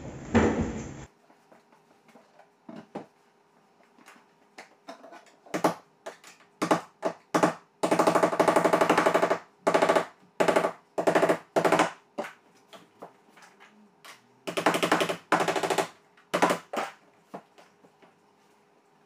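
Cordless drill-driver run in a series of short bursts, with a longer run of about a second and a half and another of about a second, as screws are driven into the window frame.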